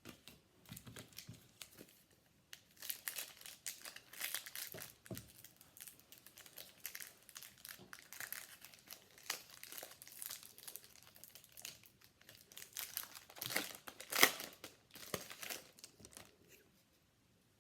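Crinkling and tearing of a trading-card pack wrapper as a Donruss football pack is torn open and handled, in irregular crackles with a sharper one near the end.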